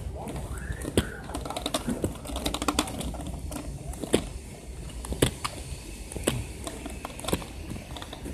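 A scooter rolling over street pavement, rattling with sharp clicks and knocks, the strongest about once a second, over a low, steady rolling rumble.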